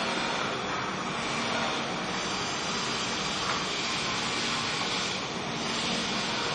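Steady machine noise with a faint low hum.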